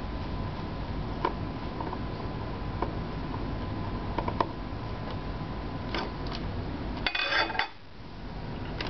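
Screwdriver working the screws out of a sheet-aluminium chassis lid: a few sparse light metal clicks, then a short metallic clatter about seven seconds in as the aluminium top plate is taken hold of and lifted.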